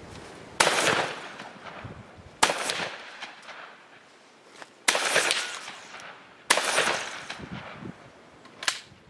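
Rifle fire: four loud, slow, aimed shots about two seconds apart, each trailing off, then a fainter shot near the end.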